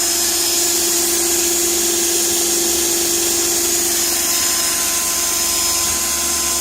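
Electric drill running steadily under load, its bit boring into the wood of a box. It makes a constant whine whose pitch shifts about four and a half seconds in.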